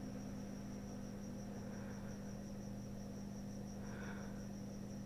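Steady low electrical hum with a faint high-pitched whine: quiet room tone.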